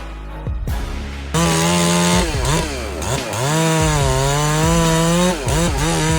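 Chainsaw engine running at high revs, its note dipping and recovering several times as it works through wood. Background music is heard under the first second or so, before the saw comes in loud.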